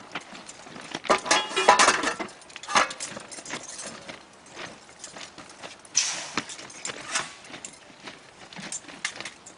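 Metal tools and parts clinking and knocking in irregular strokes, with a louder clatter about a second in and another sharp knock about six seconds in.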